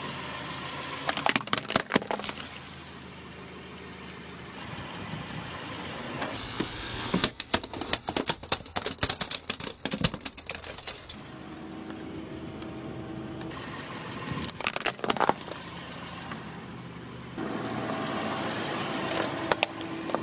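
Plastic toy trucks cracking and crunching under a rolling car tyre on gravel, in four bursts of sharp snaps, over a steady running car engine.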